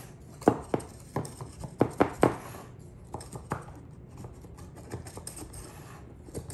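A knife blade run around the edge of a baked cake in a metal springform pan, clicking and tapping irregularly against the pan's side to free the cake. The knocks come thickest in the first few seconds and grow fainter and sparser after.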